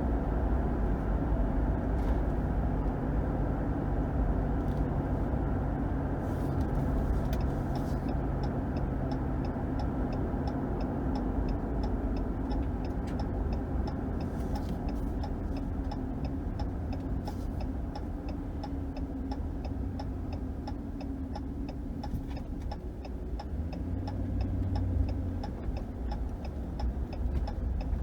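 Steady engine and road rumble inside the cab of a Ram 1500 pickup with its 5.7 HEMI V8. From about a third of the way in, a turn-signal indicator ticks about three times a second.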